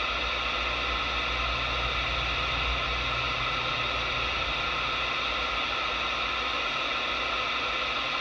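Steady static hiss from a Galaxy 979 CB radio's speaker, its receiver open with no one transmitting after the call has ended. A low rumble underneath fades out about four seconds in.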